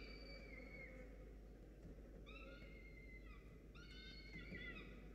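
Peregrine falcon chick begging for food: high calls, many falling in pitch, in short runs with pauses of about a second between them.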